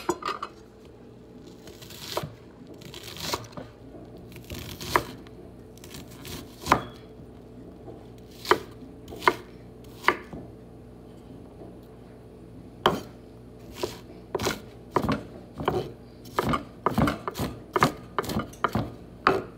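Chef's knife chopping an onion on a wooden cutting board: sharp knocks of the blade against the board, spaced about a second apart at first, quickening into a fast run of chops over the last few seconds.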